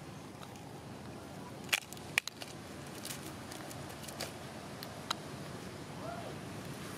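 Long-tailed macaques feeding and shifting about on dry leaf litter: a few sharp clicks and crackles, a cluster about two seconds in and another about five seconds in, over a steady outdoor background. A short rising-then-falling squeak sounds about six seconds in.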